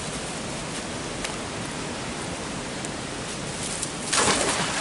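Steady rush of water over a weir, and about four seconds in, a louder splash as a fishing magnet on its rope breaks through the water.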